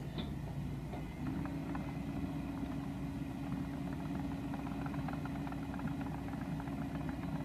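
Heavy construction machine engine, a dump truck or excavator at earthworks, running steadily, with a steady hum joining about a second in.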